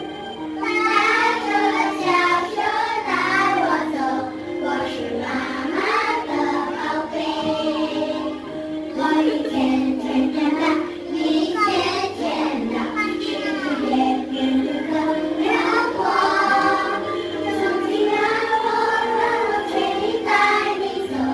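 Music: a children's song with young voices singing, playing steadily as dance music.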